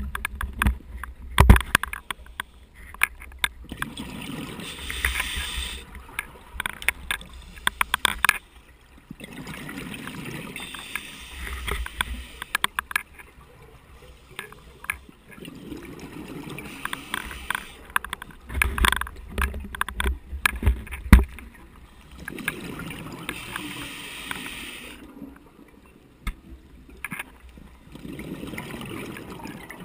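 A scuba diver breathing through a regulator underwater: slow cycles of hissing inhalations and lower, bubbling exhalations. Bursts of sharp rattling clicks come from the loose camera housing.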